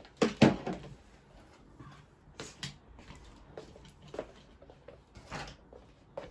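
Household handling noises: a loud cluster of knocks and clatter about half a second in, then a handful of single knocks and clicks spaced a second or so apart.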